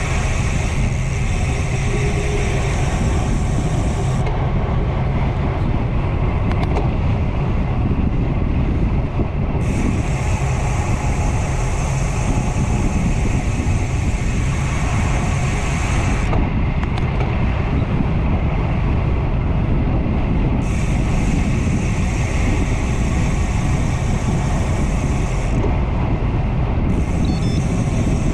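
A road bicycle riding along, its tyre noise mixed with steady wind rushing over the handlebar-mounted camera's microphone. The highest part of the hiss drops out and comes back abruptly several times.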